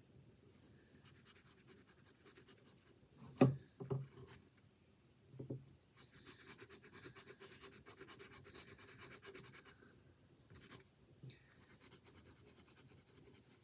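Rapid back-and-forth rubbing strokes on a drawing canvas, in stretches of a few seconds, as the hair of a pencil sketch is reworked. A few dull knocks come about three and a half, four and five and a half seconds in.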